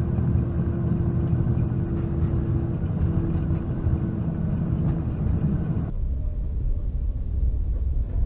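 Steady engine and tyre drone inside a moving vehicle's cab, with a constant low hum. About six seconds in, the sound abruptly turns into a duller, muffled low rumble.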